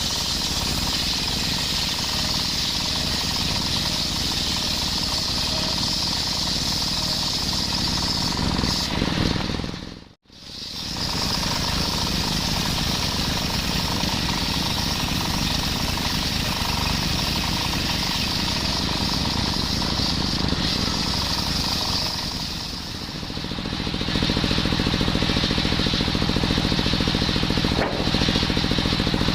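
Engine-driven circular saw running and cutting coconut-palm wood, a steady mechanical drone with a bright high hiss. It drops out briefly about ten seconds in, and near the end the sound turns lower and louder.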